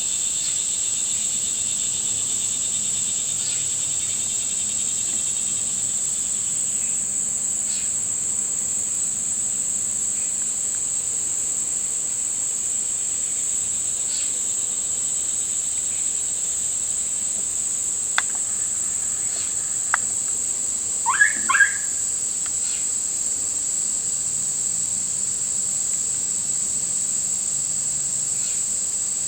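Steady, high-pitched insect chorus. A couple of sharp clicks and a short flurry of brief chirps come about two-thirds of the way through.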